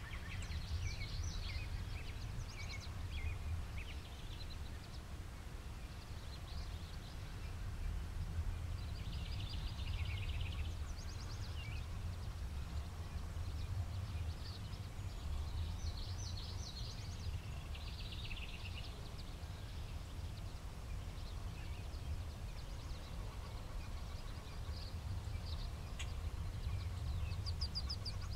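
Birds chirping and trilling on and off over a steady low rumble, the kind of rumble left by wind on the microphone or far traffic.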